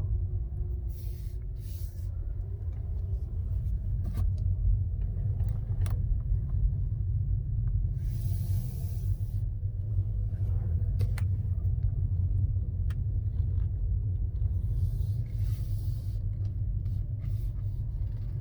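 Low, steady rumble of a Tesla Model 3 rolling along, with scattered light clicks and two short hissing bursts, about eight and fifteen seconds in.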